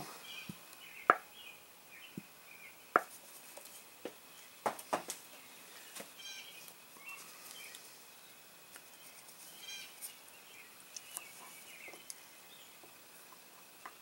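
Scattered sharp, faint clicks and taps of a small screwdriver against the steel parts of a hydraulic lifter being reassembled, most of them in the first half.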